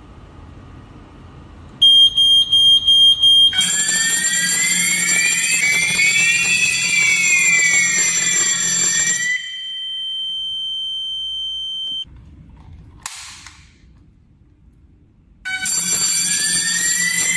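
Asenware wireless fire alarm system going into alarm: a rapid high-pitched beeping, then a siren sweeping up and down in pitch over steady high tones for about six seconds. It stops, a single steady beep holds for a couple of seconds, a short rustle follows, and the siren starts again near the end.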